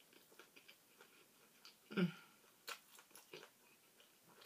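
A person chewing food with the mouth closed, close to the microphone: faint, irregular soft clicks and smacks, with a brief low hum of the voice about two seconds in.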